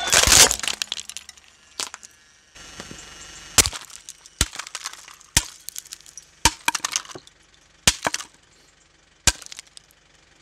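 Hard plastic shell of an electronic toy sheep cracking and shattering under a car tyre: a loud crunch at the start, then a series of sharp separate cracks and snaps about a second apart.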